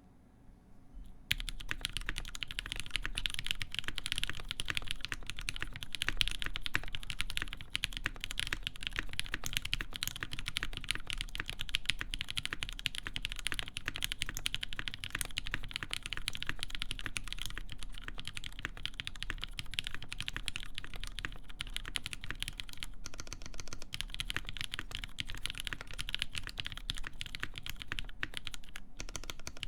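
Continuous fast typing on a mechanical keyboard with lubed linear Cherry MX Black switches in a full aluminum plate under GMK keycaps: a dense stream of key strokes with no click, starting about a second in.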